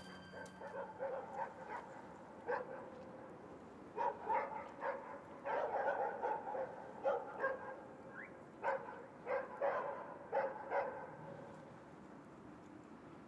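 A dog barking repeatedly: short barks in irregular runs and pairs, stopping near the end.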